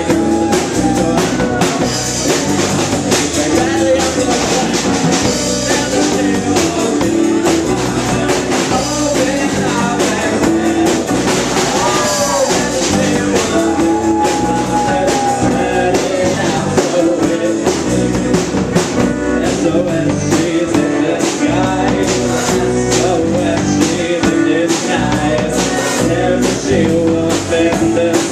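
Live rock band playing: electric guitar, bass guitar and a drum kit with cymbals, loud and continuous.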